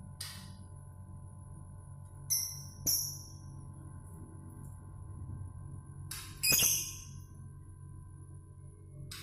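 Caged pet birds giving short, sharp, loud calls: two about half a second apart a little over two seconds in, and one more past the middle. A steady thin high tone and a low hum run underneath.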